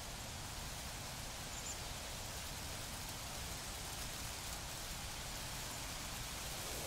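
A steady, even hiss with no distinct events, like rain or wind noise.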